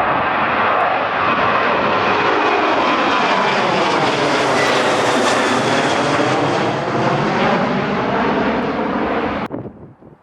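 An airliner passing close by, its engine noise swelling to a peak about halfway through with a sweeping, phasing quality, then easing off before it cuts off abruptly near the end.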